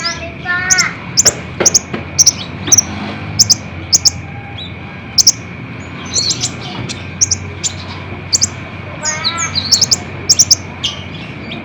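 Kolibri ninja sunbird singing: rapid, sharp, high-pitched chirps and short trills in bursts, with a lower call of several rising notes about nine seconds in.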